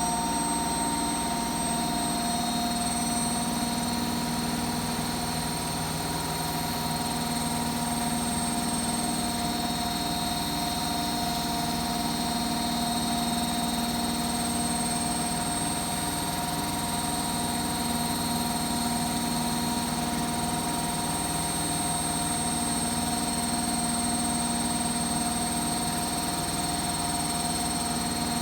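Hotpoint WMFUG742 washing machine spinning an overloaded load of towels, with a constant motor whine over a hum that holds steady throughout.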